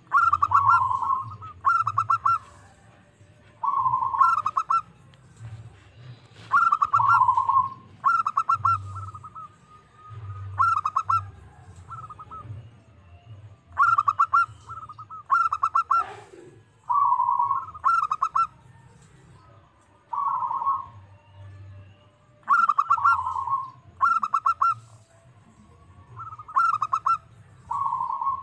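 Zebra dove (perkutut) cooing: a long run of short phrases, each a quick stutter of notes often ending in a lower drawn-out coo, repeating about every one to two seconds.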